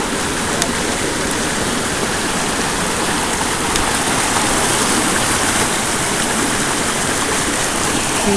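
A fast-flowing river rushing, a steady wash of running water.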